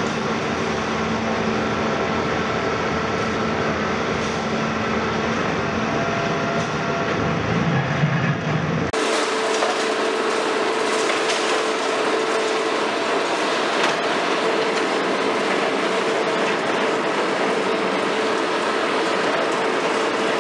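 KMC 400 high-reach demolition excavator at work: first its engine and hydraulics running with a clattering rattle. About 9 s in the sound changes abruptly to a steady hydraulic whine over a continuous crackle and clatter of concrete and debris breaking off and falling.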